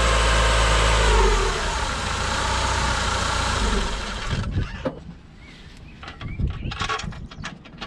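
Renault Megane R26's 2.0-litre turbocharged four-cylinder engine running, its revs falling back about a second and a half in. The engine is switched off about four seconds in, followed by scattered clicks and knocks.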